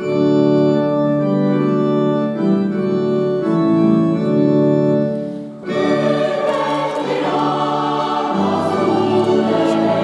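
A keyboard plays held organ-like chords that start suddenly and change every second or so. About six seconds in, a mixed choir with violins and cello comes in, singing and playing together.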